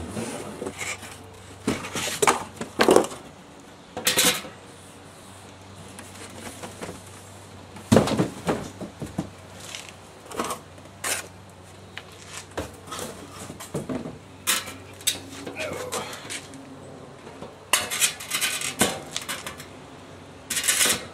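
Parts of a steel barrel smoker being handled during unpacking: irregular metallic clanks and knocks, with rustling of plastic wrapping and cardboard packing in between.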